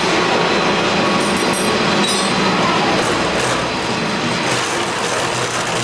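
Horizontal milling machine running steadily, its arbor-mounted cutter milling a crankshaft clamped on the table: a continuous, loud mechanical whir of cutter and gearing with metal cutting noise.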